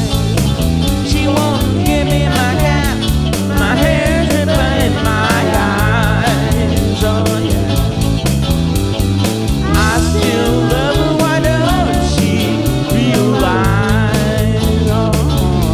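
Blues song in an instrumental passage: drums and bass keep a steady beat under a lead line of bending, wavering notes that come in phrases.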